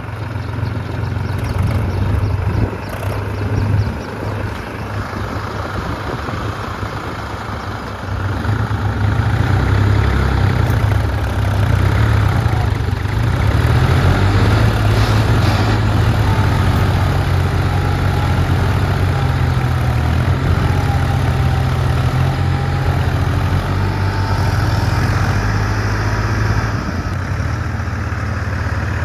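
Tractor diesel engines running steadily with a deep low rumble, getting louder about eight seconds in and staying up.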